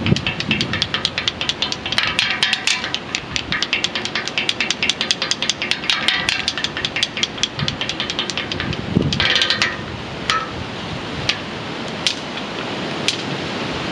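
Rapid clattering strikes on iron cage bars, many a second, thinning to occasional single strikes about ten seconds in.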